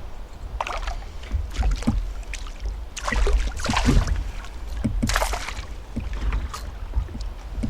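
Water splashing in irregular bursts as a hooked fish thrashes at the surface beside a canoe, over a low rumble of wind on the microphone.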